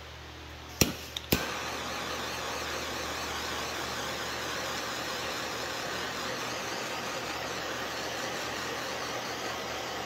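Handheld gas torch lit with two sharp clicks about a second in, then its flame hissing steadily while it heats heat-shrink tubing on a battery cable.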